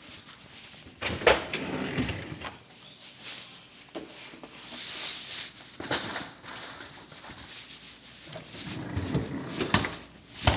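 Packages being shuffled around in a freezer: rustling and handling noise broken by a few sharp knocks, loudest about a second in and near the end.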